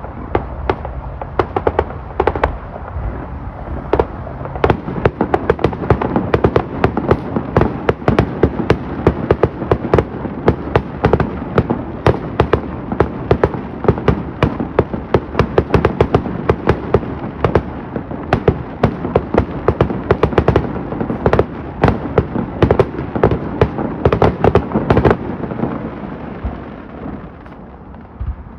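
Fireworks going off in a dense, continuous barrage of bangs and crackles, many a second, over a steady rumble. The barrage thins out near the end.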